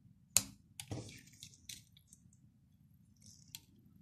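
A sharp click about half a second in, then a softer click about a second in, as a flex ribbon-cable connector is pressed home onto the camera's main circuit board by gloved fingers; a few faint ticks and glove rubbing follow.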